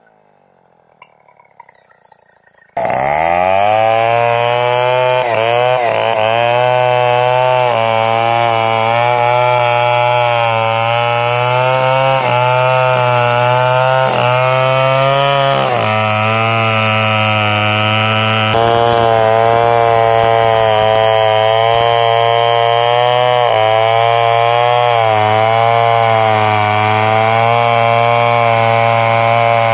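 Stihl 070 two-stroke chainsaw running at full throttle as it cuts into the base of a standing tree trunk, its pitch dipping briefly several times under load. The saw comes in suddenly about three seconds in.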